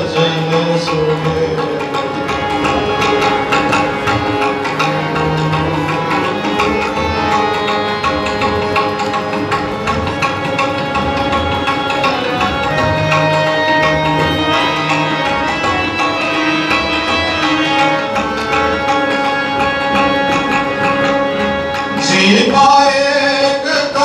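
Sikh devotional kirtan: tabla playing under steady held instrumental notes, with singing coming back in about 22 seconds in.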